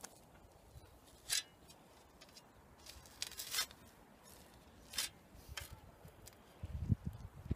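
A garden spade cutting into soil: three short scraping chops spaced a second or two apart, then low thumps near the end.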